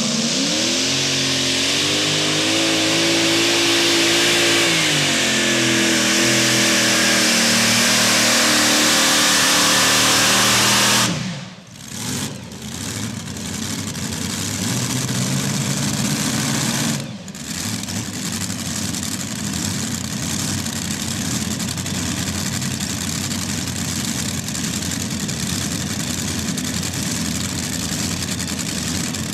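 Modified pulling tractor's supercharged engines at full throttle under load on a pull, the pitch climbing over the first few seconds and then holding. About eleven seconds in the sound drops off suddenly, then a lower, steadier engine noise runs on.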